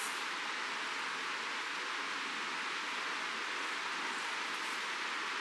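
Steady rushing of flowing river water, even and unbroken, with no peg strikes standing out.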